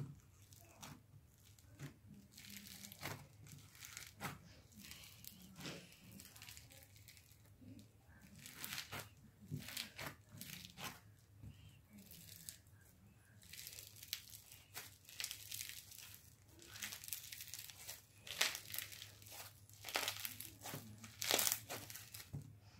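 Slime being squished, stretched and poked by hand for ASMR: sticky crackling, popping and squelching sounds in short, irregular bursts.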